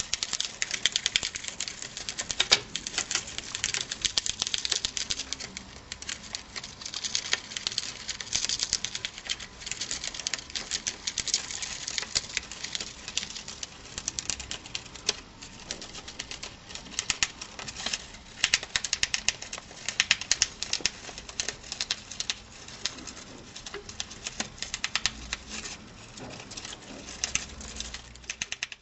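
Mongolian gerbils gnawing a chew toy: fast, dense clicking and crunching of teeth, coming in uneven bursts.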